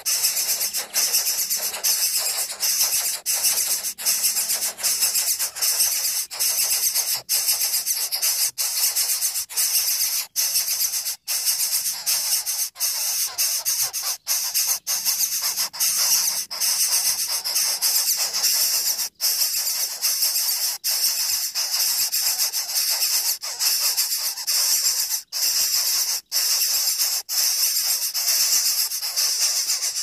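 Coucal nestlings begging with a harsh, steady hiss, repeated over and over with brief breaks between calls.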